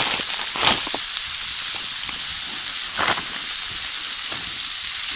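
Pieces of moose fillet sizzling steadily in butter in a hot frying pan while browning, with two louder crackles, about a second in and about three seconds in.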